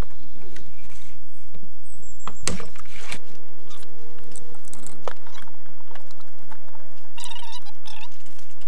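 Scattered light clicks, knocks and rustling as the earth auger and its packaging are handled.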